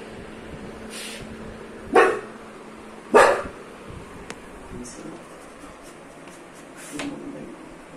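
A dog barks twice, short and loud, about a second apart.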